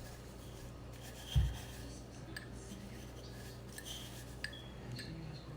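Faint rubbing of a ball of cookie dough being rolled in toasted coconut, with a few light ticks and one dull thump about a second and a half in.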